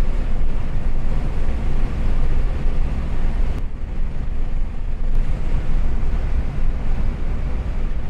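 A car driving along an open road, heard from inside the car: steady low road and engine rumble.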